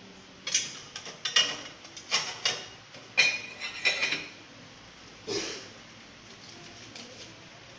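Metal instruments being put down and shifted on a metal tray, clinking and clattering. A quick run of clanks with a ringing tone lasts about four seconds, then one more clank comes a little after five seconds.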